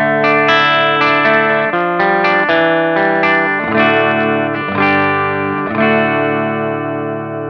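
Electric guitar played through a Peavey 6505 1992 Original tube amp head: chords struck about once a second and left to ring.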